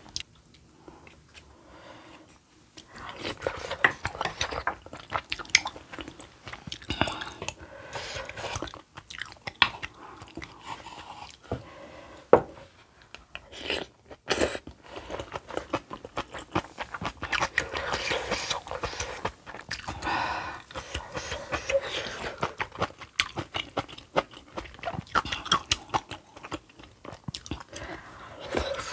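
Close-miked eating of spicy kimchi stew and rice: wet chewing, smacking and slurping of soft dough flakes and stew. It is quieter for the first few seconds.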